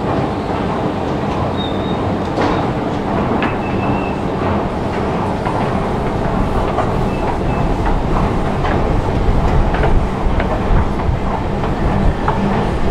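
Metro station escalator running: a steady mechanical rumble and hum with scattered light clicks and a few brief high squeaks.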